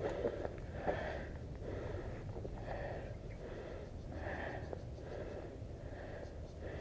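A person breathing hard and fast, close to the microphone, with a puff of breath about every second. A couple of sharp clicks come in the first second.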